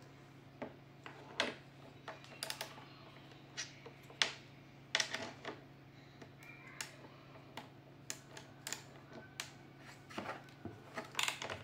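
Irregular light clicks and taps of a T10 Torx screwdriver with an extension working screws out of a vacuum cleaner's plastic housing, with a faint steady hum underneath.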